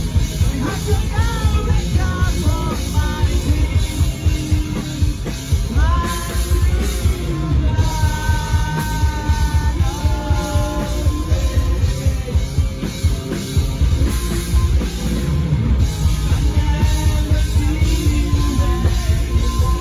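Rock band playing a song live: a drum kit and bass keep a steady, loud beat under a singer's vocal line.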